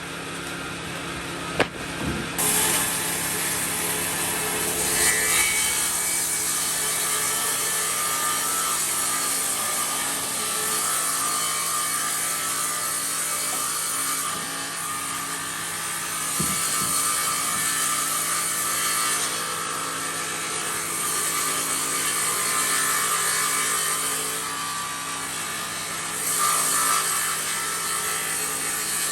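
Power saw in a sawmill cutting through wood over the steady hum of its running motor. A sharp knock comes just before the cut starts, about two seconds in, and the cut then runs on with a dense rasp that swells and eases.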